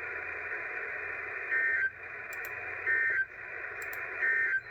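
Emergency Alert System end-of-message signal received over NOAA Weather Radio: three short buzzy data bursts, about 1.3 s apart, over steady radio static. They mark the end of the warning message.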